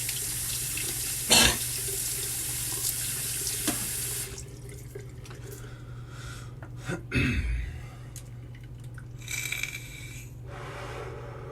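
Bathroom sink tap running steadily, then shut off about four seconds in; a few knocks and a brief splash of water follow later.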